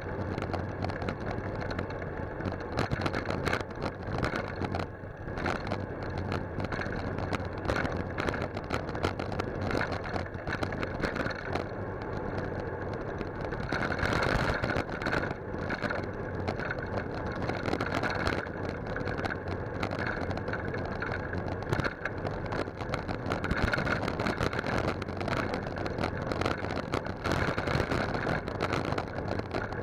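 Riding noise from a moving bicycle picked up by a handlebar-mounted camera: a steady rushing of wind and tyre noise, with frequent small knocks and rattles from bumps in the road.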